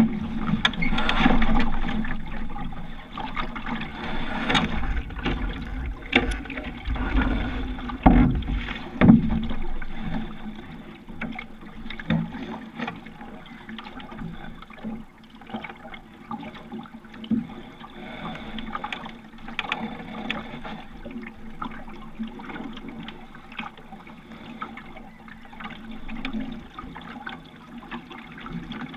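Water washing and trickling along a sailing dinghy's hull as it moves under sail, with low thuds and rumbles in the first ten seconds that settle into a quieter, steady wash.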